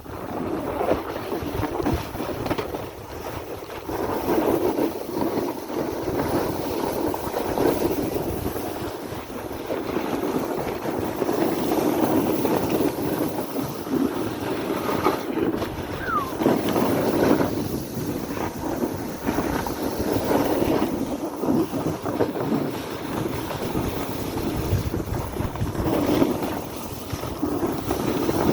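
Wind buffeting the microphone over a steady, uneven rush of sliding on snow.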